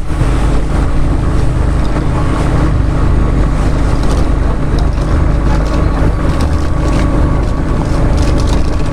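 Fishing boat's inboard engine running loudly and steadily, a constant low hum with a noisy wash over it.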